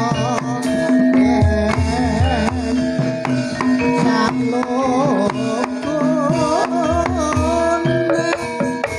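Javanese gamelan music for a Buto Gedruk dance. Drum strokes and rattling percussion play over steady held tones, with a wavering melody line on top.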